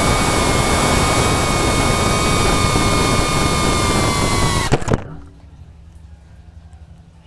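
FPV drone's motors and propellers whining at a steady high pitch. Near five seconds in they cut out abruptly with a couple of clicks, leaving a faint low hum.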